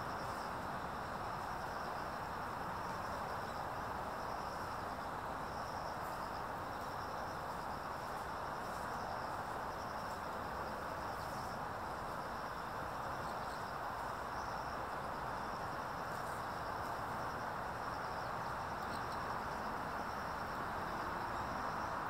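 An insect trilling steadily at a high pitch, slightly pulsing, over a constant rushing background noise.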